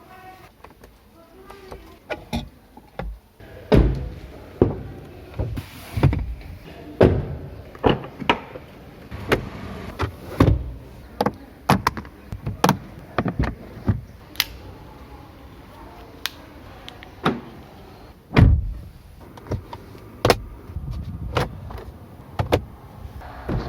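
Mahindra XUV700 body fittings being worked: an irregular run of sharp clicks and thumps of latches, doors and mechanisms, one or two a second, with one heavier thud late on.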